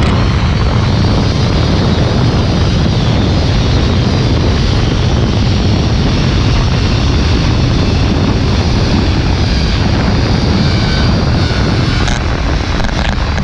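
Loud, steady rush of wind buffeting the helmet camera's microphone, with the zipline trolley's pulleys rolling along the steel cable during a fast ride.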